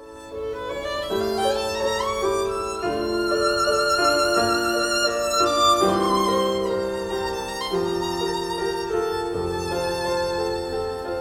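Music: a violin plays a slow melody with vibrato over held lower accompanying notes.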